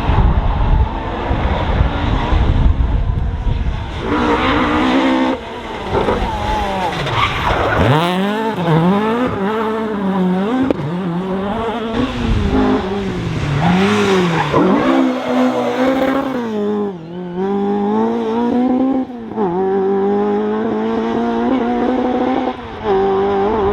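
A rally car engine revving hard, its pitch rising and falling again and again with several short throttle lifts. Tyres are skidding. It opens with a deep rumble for the first few seconds.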